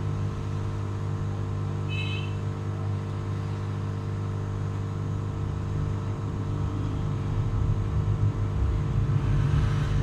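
Steady low hum, with a brief high chirp about two seconds in.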